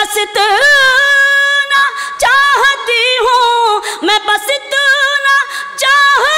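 A woman singing a line of an Urdu ghazal unaccompanied, in the sung tarannum style of mushaira recitation. She holds long notes that waver in pitch, in phrases with short breaks between them.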